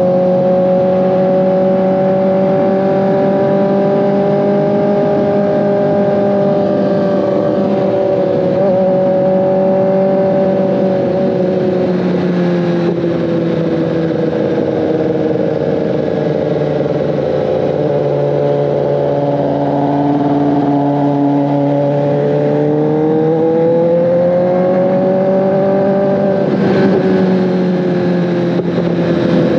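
2024 Kawasaki ZX-10RR's inline-four engine running under way at steady revs. The pitch eases down through the middle, then rises again, with a brief click near the end.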